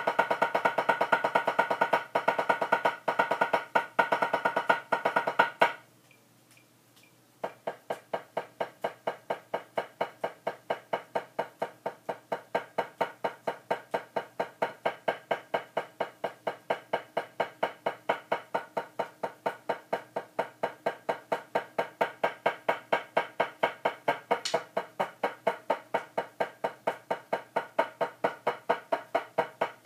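Drumsticks striking a practice pad in a steady, even run of alternating strokes, a stick-control exercise. About six seconds in the playing stops for a second and a half, then resumes with slightly quieter strokes at a steady pulse.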